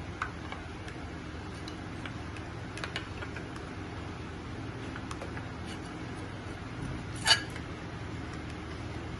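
Steel spoon stirring a thin batter in a glass bowl, knocking against the glass now and then in a few light clicks and one sharper clink a little after seven seconds in, over a steady low background hum.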